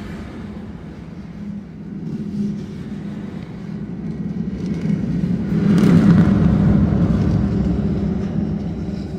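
A low rumble that builds steadily, is loudest about six seconds in, then dies away.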